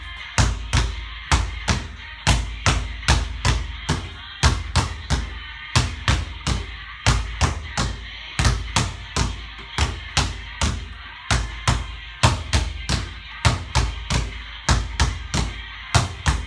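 Basketball dribbled hard and fast on a court, a deep bounce about three times a second in a slightly uneven rhythm with brief breaks, over background music.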